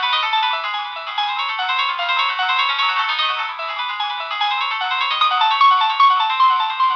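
Nokia 7650 stock ringtone playing from the phone, a fast melody of short, bright notes in quick succession.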